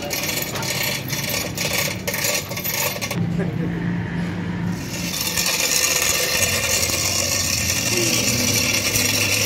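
Metalwork on a truck axle: metal scraping with small clinks, then a steady hiss over a low hum about halfway through.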